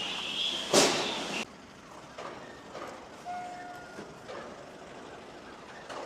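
Assembly-line factory noise: a short sharp hiss about a second in, then quieter steady background with a faint brief tone partway through.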